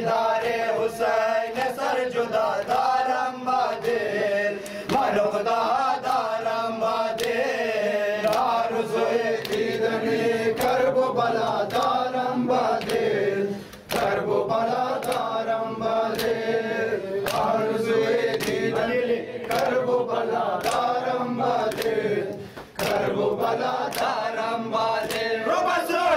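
A group of men chanting a Shia mourning lament (noha) together, over a steady rhythm of hands slapping on chests (matam). The chanting dips briefly twice.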